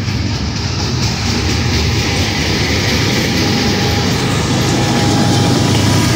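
Freight train of covered hopper and tank cars rolling past close by: a steady rumble and clatter of steel wheels on the rails.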